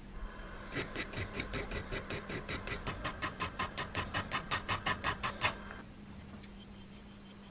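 Small flat file rasping across the cut ends of steel bolts clamped in a vise, in quick short strokes at about four to five a second. The strokes stop about five and a half seconds in, over a steady low hum.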